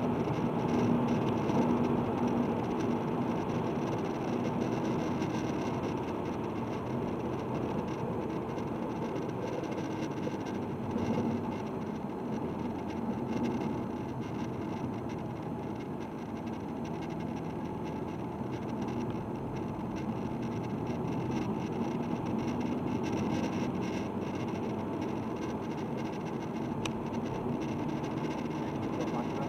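A diesel car running steadily on the move: a constant engine hum mixed with road noise.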